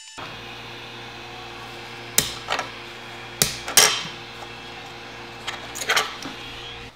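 Sharp clicks and knocks of hard printed plastic parts and a hand on a Creality Ender 3D printer's glass bed, two pairs in the middle and a quick cluster near the end, over a steady hum from the printer.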